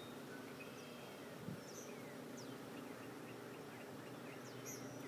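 Outdoor ambience with a bird chirping: scattered high calls, then a run of quick, downward-sweeping chirps from about two seconds in, over a faint steady hum. A single soft thump about a second and a half in.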